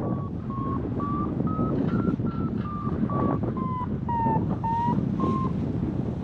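Paragliding variometer beeping, about two or three short tones a second, the sign of climbing in lift. Its pitch rises, falls and rises a little as the climb strengthens and weakens, and the beeping stops near the end. Wind rushes on the microphone underneath.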